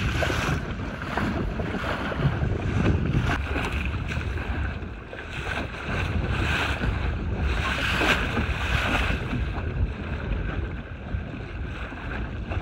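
Wind buffeting the microphone in a heavy, uneven rumble, over choppy water washing around a small sailboat's hull, the wash swelling and easing every second or two.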